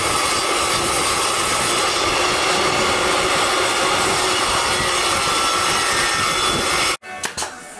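DeWalt jobsite table saw running and ripping a long wooden cladding board lengthwise, a loud steady whine and hiss of blade through wood. It cuts off abruptly near the end, leaving a few faint clicks.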